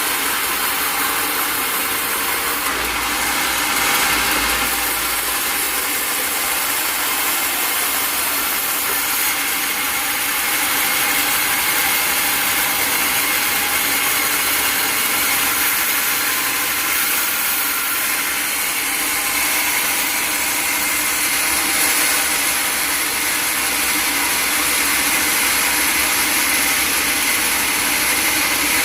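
Sawmill machinery running steadily: a continuous mechanical noise with a faint steady whine.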